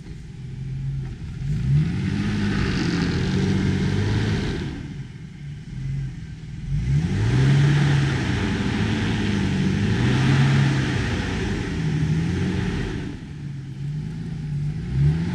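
Off-road vehicle's engine revving up and down over and over, the note rising and falling every second or two, as when working through deep mud ruts. A rushing hiss rides on top and drops away twice, around five and thirteen seconds in.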